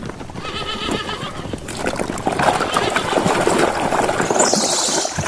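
A horse-whinny sound effect tails off in the first second or so. It gives way to splashing water and scrubbing noises as a muddy plastic toy is washed.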